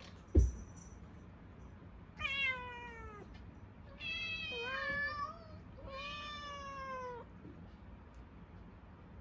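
A thump about half a second in, then Munchkin cats meowing three long, drawn-out meows, each falling in pitch, hungry cries for food.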